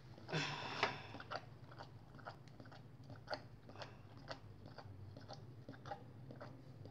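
Mother dog and her nursing puppies making small wet mouth clicks and smacks, irregular, a few a second, from suckling and licking. A brief rustle of the blanket in the first second.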